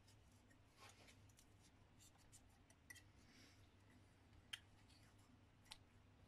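Faint scraping and a few light ticks of a Stanley knife blade trimming excess paper gasket material flush with the crankcase gasket surface, barely above near silence.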